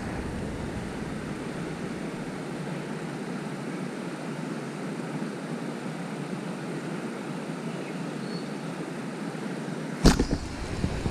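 Steady rush of water pouring through a spillway. About ten seconds in, a sharp knock, followed by low wind rumble on the microphone.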